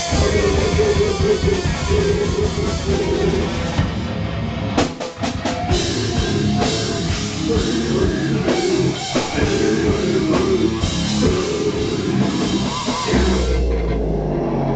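Rock band playing live, heavy-metal style, with a drum kit and electric guitar. The playing breaks briefly about five seconds in, marked by a few sharp hits, then carries on.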